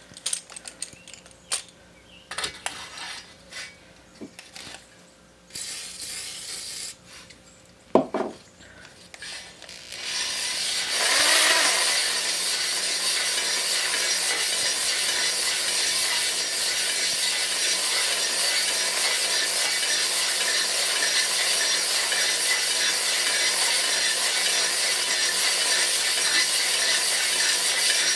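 Clicks and knocks as a stone cylinder hone and its drill are handled and set into the bore of a Briggs & Stratton 14.5 HP OHV engine cylinder. About ten seconds in, the drill starts and runs steadily, the hone stones scraping the cylinder wall. This is a last pass to even out the crosshatch near the top of the bore.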